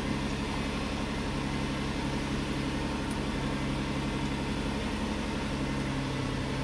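Nissan Murano's 3.5-litre V6 idling steadily with a fast idle, heard from inside the cabin: the raised idle is what the idle air volume relearn is meant to bring down.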